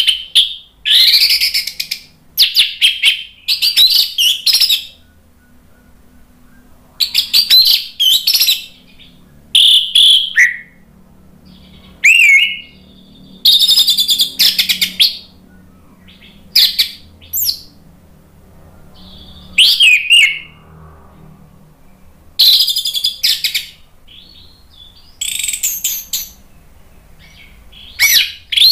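Orange-headed thrush (anis merah) singing loudly and in full voice, in a dozen or so bursts of rich, varied whistled and chattering notes. Each burst lasts about one to two seconds, with short pauses between them.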